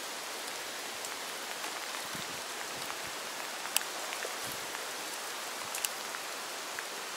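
Steady rain falling on water and wet ground, an even hiss, with two sharp clicks about four and six seconds in.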